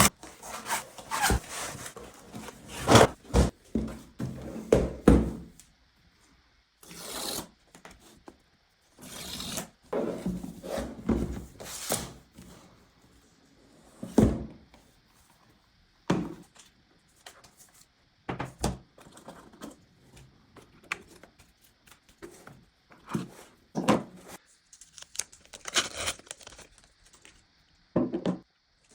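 Cardboard and paper packaging of a new MacBook Air being opened by hand: irregular tearing, rubbing and sliding of the box and its wrap, with occasional sharp thunks as parts are set down. The busiest, loudest handling comes in the first few seconds.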